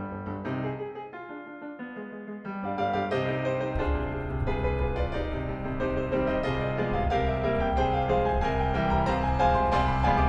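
Piano music playing. It starts with light chords, then grows louder and fuller about three seconds in as low bass notes join.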